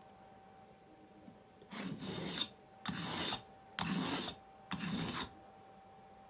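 Steel plane-style blade being rubbed by hand on a dry whetstone, no water: four gritty rasping strokes about a second apart.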